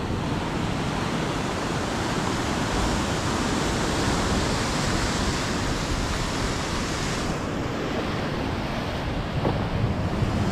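Steady rush of ocean surf and wind, with wind buffeting the microphone. The higher hiss thins out about seven seconds in.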